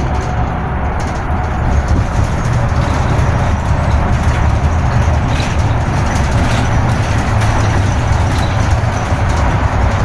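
Steady low rumble of a motor vehicle on the move, with road noise.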